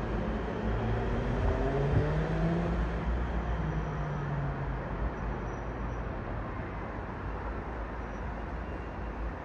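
Boeing 777-200ER jetliner passing overhead: a broad engine roar that slowly fades, with tones sliding down in pitch in the first few seconds as it goes by.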